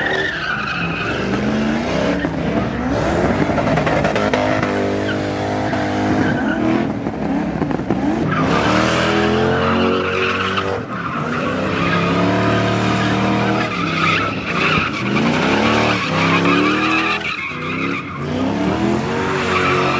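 Car engines revved hard over and over, their pitch climbing and falling, with tyres spinning and skidding as cars drift on snow.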